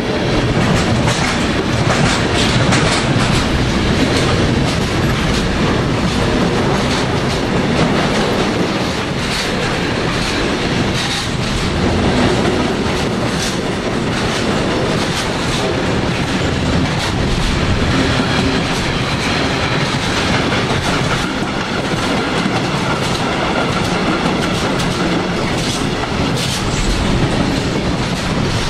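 Freight train rolling past, its wagon wheels clattering steadily over rail joints, loud and unbroken throughout.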